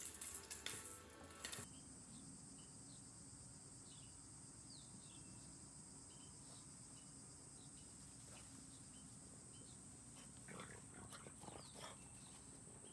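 Plastic toys hanging from a baby bouncer rattling as a puppy bats at them, for about the first second and a half. Then faint outdoor sound: a steady high insect hum, scattered short bird chirps, and a few short snorts from a French bulldog about ten seconds in.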